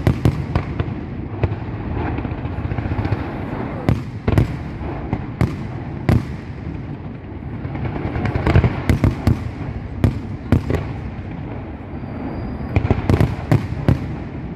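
Fireworks going off: sharp bangs at irregular intervals over a continuous rumble, with quicker runs of bangs about halfway through and again near the end.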